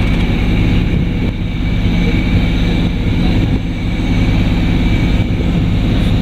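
Sailboat's auxiliary engine running steadily, a low, even hum with a thin steady whine above it.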